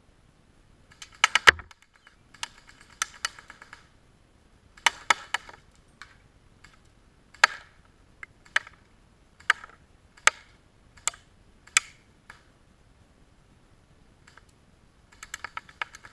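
Homemade select-fire airsoft sniper rifle firing BBs: a string of sharp shots roughly a second apart, with short rapid clusters of shots near the start and again near the end.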